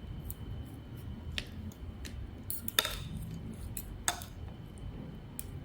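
Utensils clinking against dishes in a few sharp separate clicks, about three over the few seconds, over a low background murmur.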